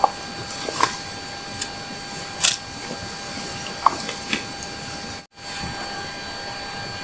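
Steady hiss with a few scattered sharp clicks and knocks from gear being handled in a backpack beside a wood campfire. The sound breaks off for a moment a little after five seconds.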